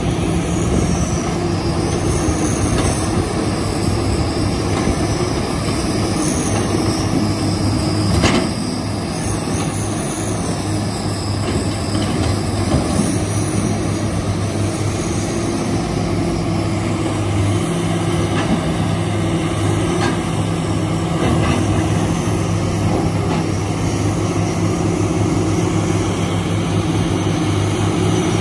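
Kobelco SK350 hydraulic excavator's diesel engine running steadily under load as it digs and swings, with a high whine that rises and falls through the first half. A single sharp knock comes about eight seconds in.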